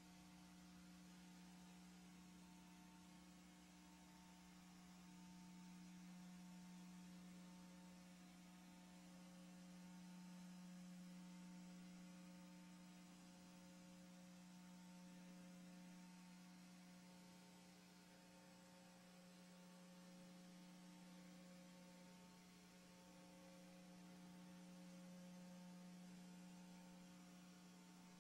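Near silence with a faint, steady electrical hum and light hiss. The hum slowly swells and fades but has no events in it.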